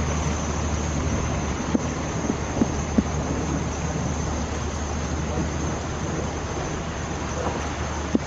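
Steady rushing noise with a constant low hum underneath and a few short, sharp clicks scattered through it.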